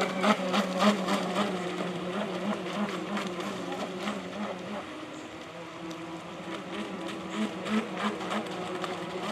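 Electric radio-controlled Club 500 racing boats running on the water together, a steady buzzing motor whine with a regular pulsing about two or three times a second.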